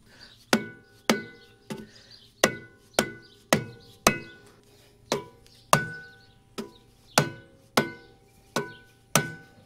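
Rubber mallet tapping a metal wheel spacer onto a TYM T654 tractor's axle hub, about two blows a second, each blow leaving the spacer ringing briefly. The spacer is a very snug fit and is being driven over the wheel studs.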